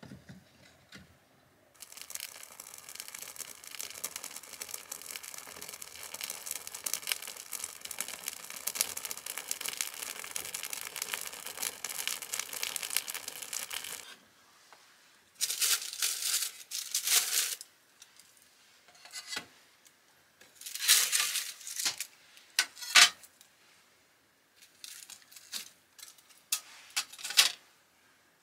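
Wood fire crackling steadily in the firebox of a masonry stove for about twelve seconds, then stopping suddenly. After it come several short separate bursts of crinkling and rustling.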